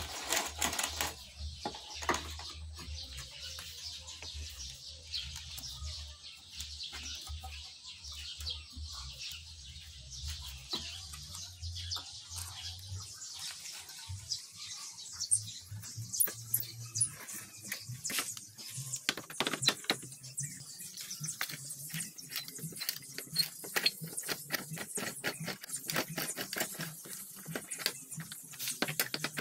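A metal T-handle socket wrench clicking and scraping on the bolts of a Yamaha Mio scooter's plastic floorboard panel as they are worked loose. The clicks come in quick, dense runs in the second half.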